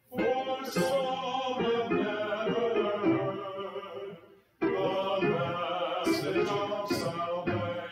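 A congregational hymn sung with keyboard accompaniment, slow and sustained. A little past halfway the sound fades out almost completely and then snaps back abruptly, typical of the faulty recording equipment.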